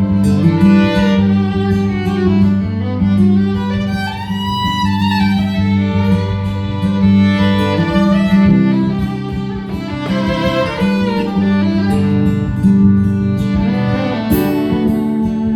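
Instrumental break in a country song: a fiddle plays a sliding lead over guitar accompaniment.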